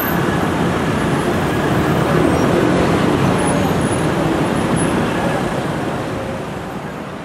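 Busy city street traffic: buses and cars running past in a steady rumble, a little louder a couple of seconds in and easing off near the end.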